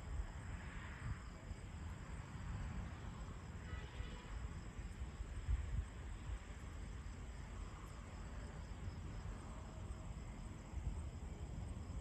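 Night thunderstorm ambience: a low, uneven rumble that swells a few times, with faint insect chirping above it.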